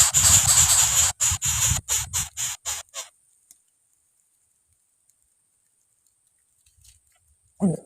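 A loud hissing noise that breaks into short bursts and fades out about three seconds in, then near silence, with a brief low sound near the end.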